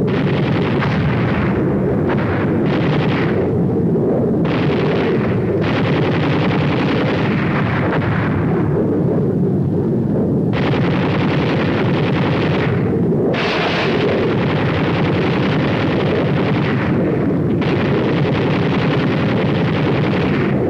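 Dense, unbroken din of gunfire and explosions over a constant rumble: a strafing attack by F-80 jets as dubbed on a film soundtrack. The hissing top of the noise drops away and returns several times.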